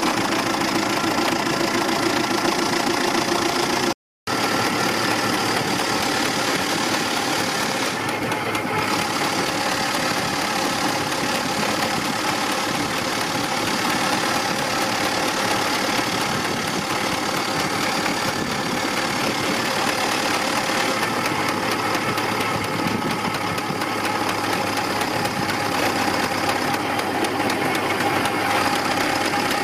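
Small steam road engine running steadily along a paved lane, a continuous mechanical running sound with the noise of its wheels on the road. The sound cuts out completely for a moment about four seconds in.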